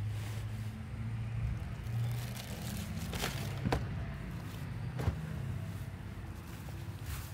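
A car engine running with a steady low hum, with a few light clicks and scuffs of footsteps on grass.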